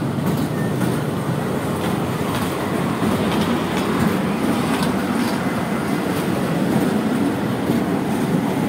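A small amusement ride train running along its narrow rail track, with passengers in open cars: a steady running noise with a few faint clicks from the wheels and cars.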